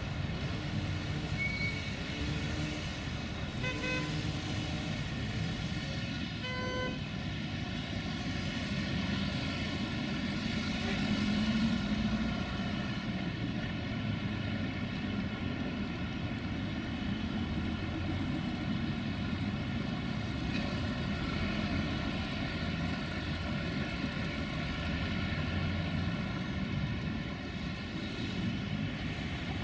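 Steady city road traffic, cars and trams going by, with two short horn toots at about four and seven seconds in.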